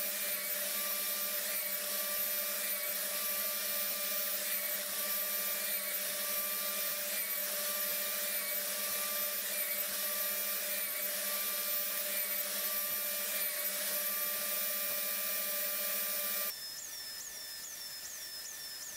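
An electric compound miter saw's motor runs with a steady high whine, dipping slightly now and then as the blade bites into wooden stretcher bars. About three seconds before the end the sound cuts off abruptly and becomes a quieter high whine with a quick repeating chirp.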